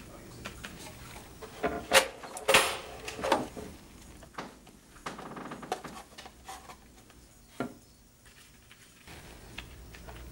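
Objects being handled and lifted out of a wooden crate: a string of knocks and clatter of things against the wood, loudest in a few sharp knocks about two to three seconds in, then lighter taps and rustling.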